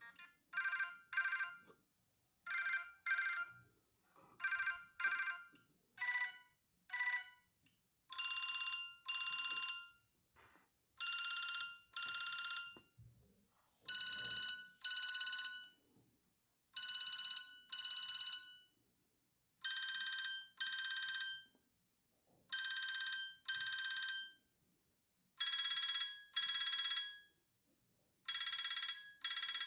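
Siemens CXT65 mobile phone playing a ringtone of repeated double rings. The pairs come about every two seconds at first; from about eight seconds in they are longer and louder and come about every three seconds.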